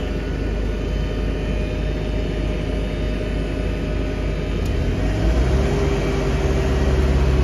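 Doosan DX19 mini excavator's diesel engine running steadily. About five seconds in it grows louder and deeper and a steady whine joins it as the machine is worked.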